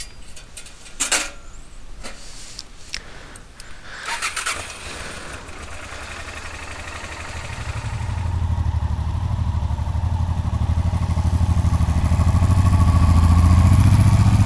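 A few clicks and rustles of handling, then about halfway through a Honda Transalp 650's V-twin engine starts and settles into a steady, low, pulsing idle that grows louder over the last few seconds.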